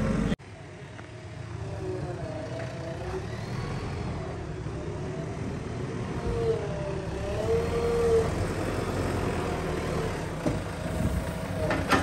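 Diesel engine of a JCB 3DX backhoe loader running steadily, its pitch rising and falling as the machine works.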